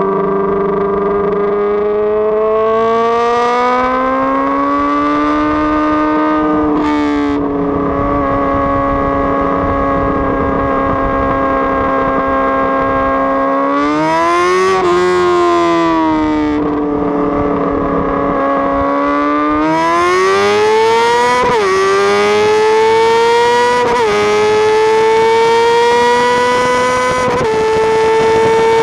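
A vehicle engine running at high revs with slow swings in pitch, then accelerating through the gears: its pitch climbs and drops sharply about three times in the last ten seconds, like upshifts.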